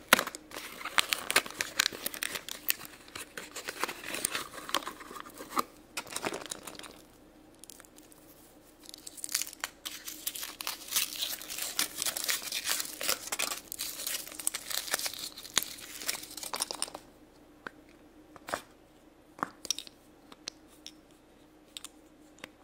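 Paperboard surprise box being torn open, then a foil wrapper crinkling as it is peeled off an egg, in two long stretches of dense crackling with a short lull between. Near the end, a few light clicks from a small plastic capsule being handled.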